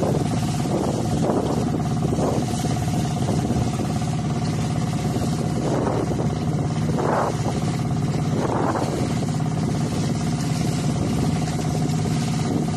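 Fishing boat's engine running at a steady drone, with a few short, brief noises over it about halfway through.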